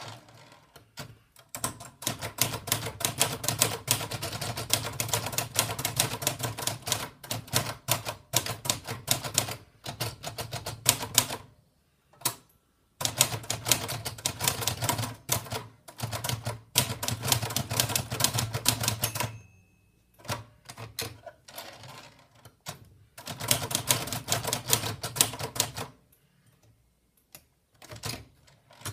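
Keys of an Olivetti College manual portable typewriter being typed, a rapid clatter of strikes in long runs broken by a few short pauses.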